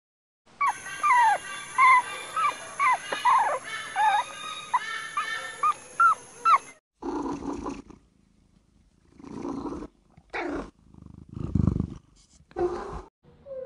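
Animal calls: for about six seconds, a rapid, uneven run of short, loud cries, each falling in pitch, with a steady high whine behind them. After a brief pause come several separate, shorter and lower calls.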